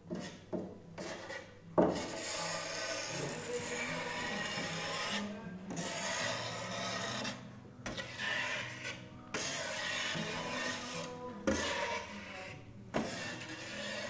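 A hand spreader scraping across a glass panel through a layer of hot animal glue, in several long rasping strokes with short pauses between them. A sharp tap about two seconds in.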